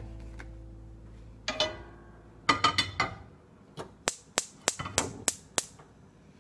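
Gas hob's spark igniter clicking as a burner is lit, about three sharp clicks a second for roughly two seconds. Before that, a few brief clatters.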